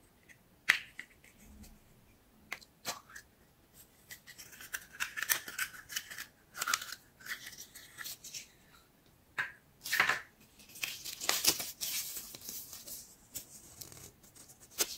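Hands unpacking a surprise-egg toy. A few sharp clicks of the plastic capsule come first, then stretches of crinkling and rustling as the wrapped toy and a paper leaflet are unwrapped and unfolded, with another loud click partway through.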